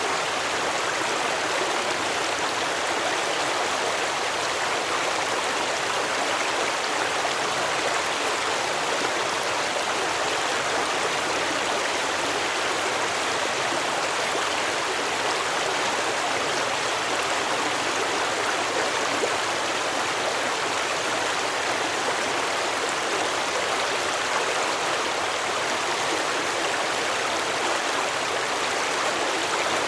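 Stream water flowing and babbling in a steady, even rush.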